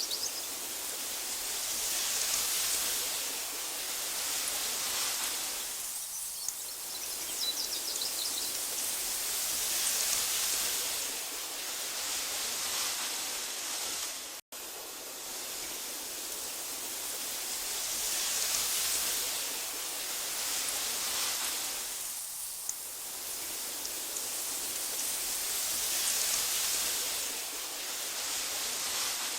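Wind blowing through tall meadow grass, a steady hiss that swells and eases in slow gusts, with a few faint bird chirps early on. The sound cuts out for an instant about halfway through.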